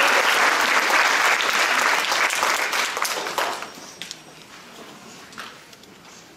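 Audience applauding, dying away about three and a half seconds in to a low background with a few faint clicks.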